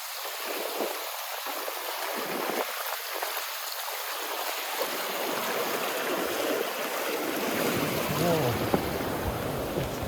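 Stream water running steadily, a rushing haze that grows fuller and deeper about halfway through. A brief low voice sounds near the end.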